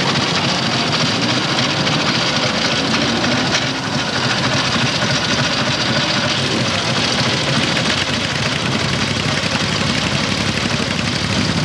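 Vintage motorcycle engine idling steadily, heard close to the exhaust.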